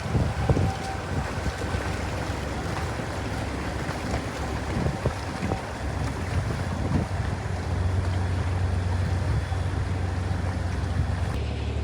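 Boat engine running steadily as a low hum, under rushing wind and water noise.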